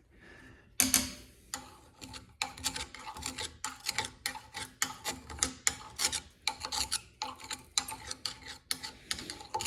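Scratchy scraping and rubbing inside a drill press head as packed, dried mouse nest is dug out from around the quill: a loud scrape about a second in, then a steady run of short strokes, about three a second. The nest debris is what has been jamming the quill.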